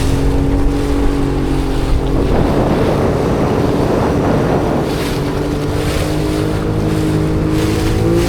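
Motorboat engine running steadily, with wind and rushing water noise that swells for a few seconds in the middle. The engine pitch steps slightly higher near the end.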